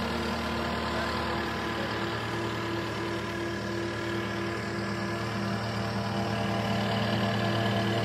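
Diesel engine of a Cat compact track loader running steadily as the machine drives over loose dirt, a constant drone that grows a little louder near the end as it comes closer.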